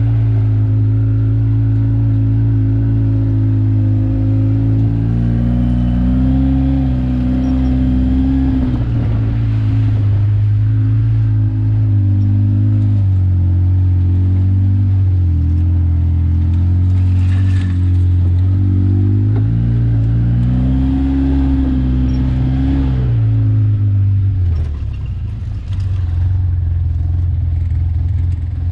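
Off-road vehicle's engine running on a rough dirt trail, with the throttle changing: its pitch rises twice and falls back. It eases off briefly near the end.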